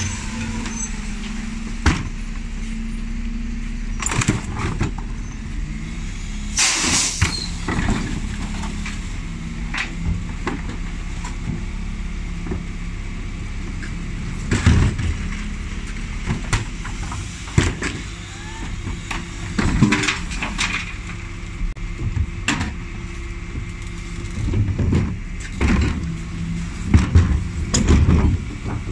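Dennis Elite 6 bin lorry's diesel engine running steadily at the kerb while wheelie bins are wheeled onto and emptied by the Terberg OmniDEL rear bin lift, with repeated knocks and clatters of the plastic bins and lift. A loud rush of noise lasting about a second comes about seven seconds in.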